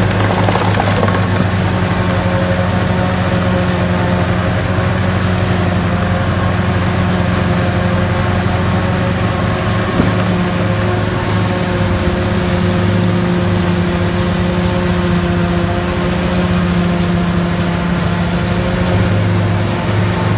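Claas Jaguar 820 forage harvester running steadily while it cuts and chops standing maize for silage: a loud, even engine and chopper drone that holds the same pitch throughout.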